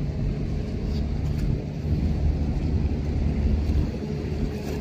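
Steady low rumble of a large container ship under way at close range, with a faint steady hum over it from its machinery.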